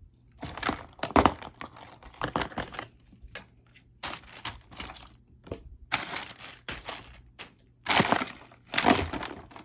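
Irregular bursts of rustling and crinkling as plastic packaging and toys are handled and rummaged through.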